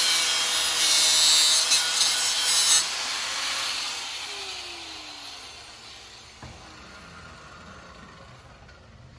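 Angle grinder's disc grinding into the steel pipe of a catalytic converter: a loud, harsh hiss for about the first three seconds. The grinder is then lifted off and its motor winds down with a falling whine over a few seconds, with a faint click near the end.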